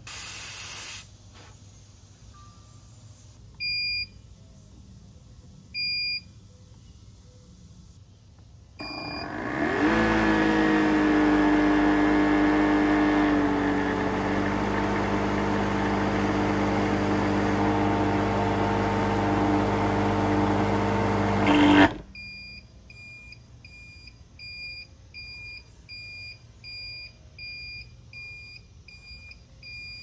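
Refrigerant recovery machine being set going: a brief hiss at the start, three single electronic beeps, then the machine's compressor motor starts, rising in pitch over about a second. It runs steadily for about twelve seconds and stops abruptly. An electronic beep then repeats steadily, a bit faster than once a second, like an alarm.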